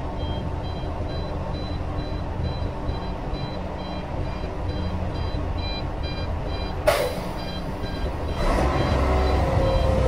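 A dump truck's reversing alarm beeping steadily as the truck backs up, over the low, steady running of a hydraulic excavator's diesel engine. The beeping stops about seven seconds in with a sudden sharp hiss, and the engine grows louder near the end.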